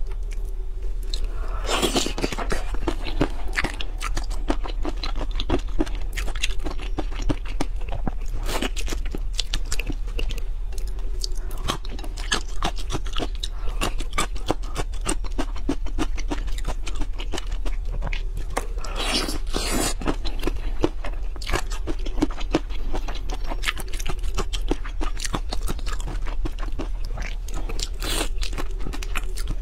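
Shrimp shells being cracked and peeled apart by fingers, close to the microphone: a dense run of small clicks and crackles, with a few louder crunches, and a bite into the shrimp near the end.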